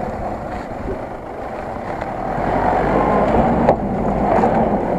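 Nissan Patrol SUV's engine running as it drives across a dry dirt slope close past, getting louder from about two seconds in as it nears, with a single sharp click about three-quarters of the way through.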